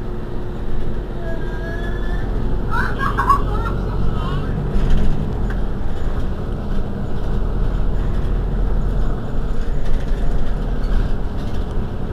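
Mercedes-Benz Citaro G C2 articulated city bus idling while stationary, its rear engine giving a steady low hum. Faint voices can be heard over it near the start.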